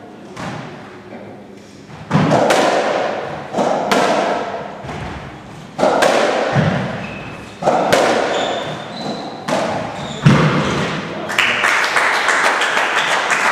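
Racketball rally on a squash court. The rubber ball is struck by the rackets and slams into the walls, each hit ringing out around the court, roughly one every second or two. Applause breaks out near the end.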